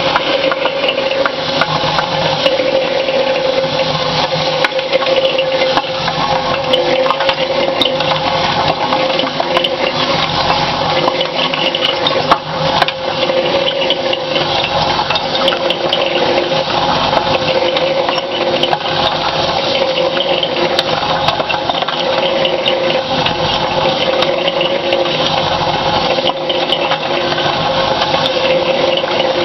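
Electric cement mixer running as a ball mill: a charge of steel balls, rods and nuts tumbling and clattering continuously through a wet ash slurry in the turning drum, over a steady hum. The drum has been tilted steeper so the charge keeps rolling and grinding the last fine material.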